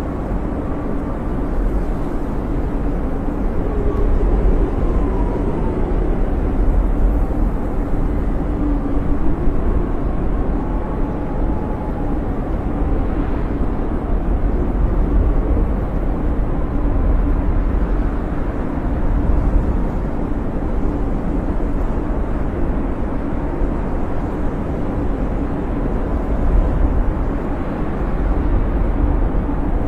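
Blizzard wind blowing steadily with a low rumble, and faint whistling tones that waver up and down in pitch.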